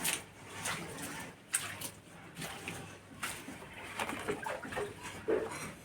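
Repeated scraping strokes of a hand tool rubbing over a plastered wall, with a pigeon cooing a few short times in the second half.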